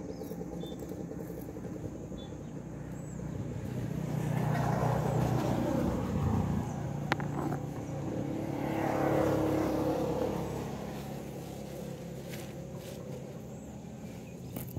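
Steady low motor-vehicle engine hum, swelling louder twice, as traffic passing by does. A single sharp click about halfway through.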